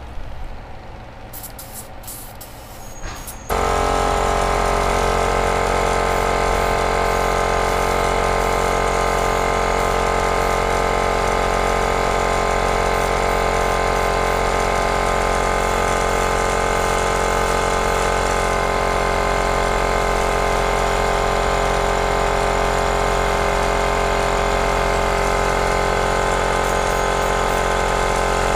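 A few light clicks, then about three and a half seconds in an airbrush air compressor switches on and runs steadily with a constant motor hum, supplying air to the airbrush spraying paint onto a lure.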